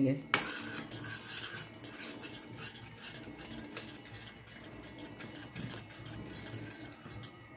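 A metal spoon stirs and scrapes bubbling jaggery syrup in a stainless steel kadhai, with many small clinks against the pan. A sharp knock comes about half a second in. The syrup is being cooked toward one-thread consistency.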